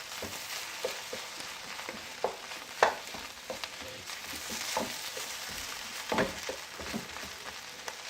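Fried rice sizzling in a hot pan while being stirred, a steady hiss broken by the clicks and scrapes of the spatula against the pan.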